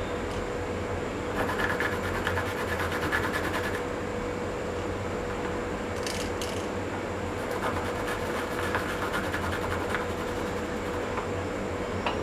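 A dried herbal ingredient rubbed back and forth against a wet grinding stone (urai kal) to make a paste: two stretches of quick, fine scraping strokes over a steady hum.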